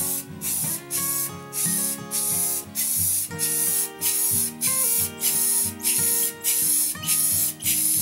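Aerosol can of clear finish sprayed in quick short bursts, about three every two seconds, each a brief high hiss. Background acoustic guitar music plays underneath.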